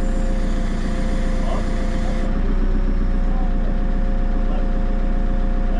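JCB 3CX backhoe loader's diesel engine running steadily, a low drone with a steady whine over it.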